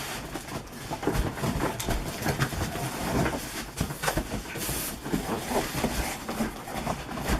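Cardboard box and packing rustling, scraping and knocking as an electric space heater is pulled out of its carton, in a busy run of irregular handling noises.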